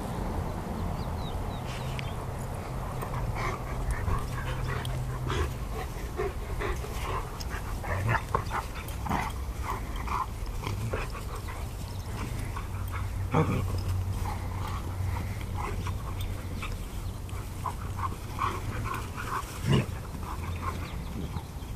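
Two Greater Swiss Mountain Dogs play-wrestling, making many short vocal sounds scattered throughout, with a few louder sharp ones, about a third and two thirds of the way in and near the end.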